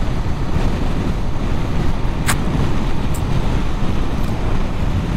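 Steady rushing of wind and motorcycle noise while riding at road speed, with a sharp click about two seconds in.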